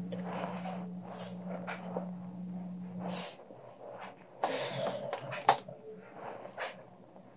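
Plastic tubing being handled: irregular rustling and scraping with a sharp click about five and a half seconds in, over a low steady hum that cuts off about three seconds in.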